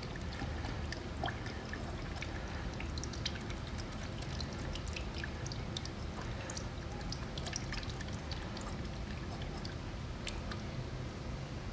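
Automatic transmission fluid poured slowly in a thin, steady stream from a quart bottle into a plastic funnel, with many small scattered ticks of drips and bubbles.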